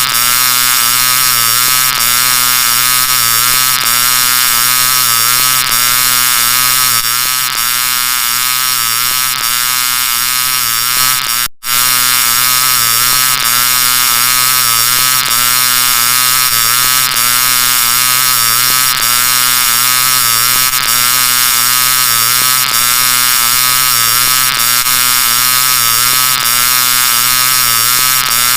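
Loud 'G Major' meme audio effect: a heavily processed, pitch-shifted sound of many stacked tones, looping continuously with a faint repeat every second or two and cutting out for a split second about twelve seconds in.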